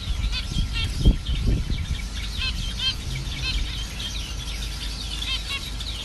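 A caged group of zebra finches calling, with many short, quick chirps overlapping throughout. A low thump stands out about a second in.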